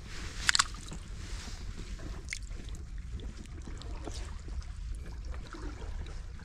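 Steady low rumble of wind on the microphone over water trickling among rocks, with a few sharp clicks as a shell is handled and the shellfish is pried out, the loudest a double click about half a second in.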